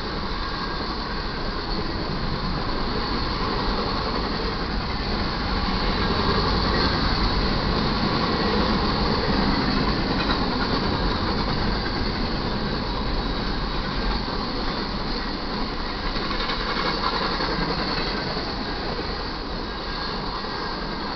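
Freight cars of an intermodal train rolling past at speed: a steady rush and rumble of steel wheels on the rails that swells a little about a third of the way in.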